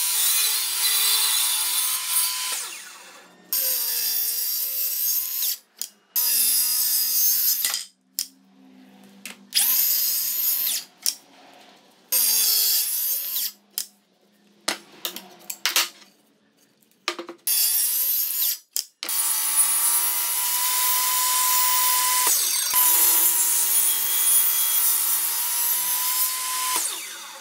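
Table saw ripping through a wooden beam, then several short separate bursts of a power tool starting and stopping, then the table saw cutting a board again in a long steady stretch near the end.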